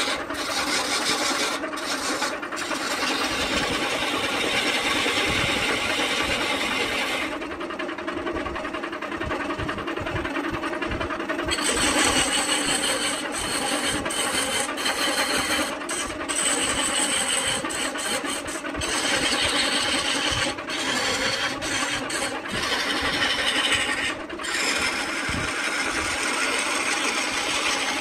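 Belt-driven wood lathe running with a coconut palm log block spinning as a hand-held turning tool cuts into it: a steady rasping hiss of the cut over the machine's hum. The high hiss drops away for a few seconds about a quarter of the way in, and there are short breaks in it now and then.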